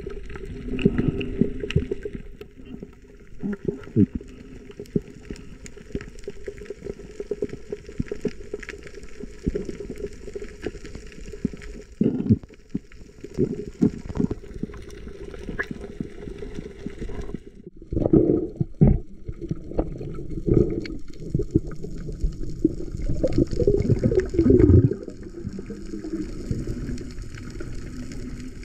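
Water sloshing and gurgling, with many irregular knocks and splashes and two louder stretches in the second half.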